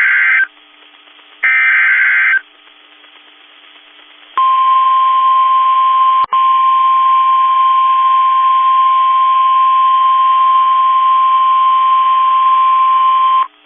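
NOAA Weather Radio emergency alert. The tail of one buzzy two-tone SAME data burst and then a second full burst are followed by the steady 1050 Hz warning alarm tone, held for about nine seconds with a brief dropout near the start. This sequence signals that a new warning bulletin is about to be read.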